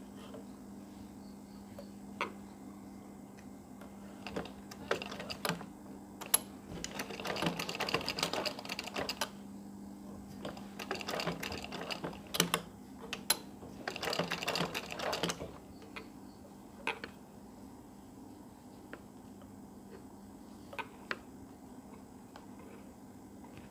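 Sewing machine stitching in three short runs of a few seconds each through the middle, with scattered sharp clicks and taps from the machine and fabric being handled between the runs.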